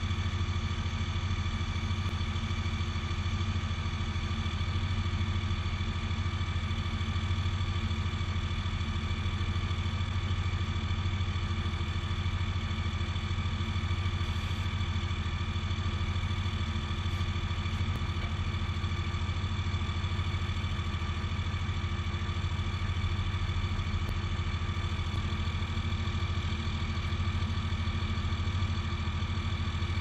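A 5.9-litre Cummins turbo-diesel in a Dodge Ram 3500 idling steadily, with an even low hum that does not change.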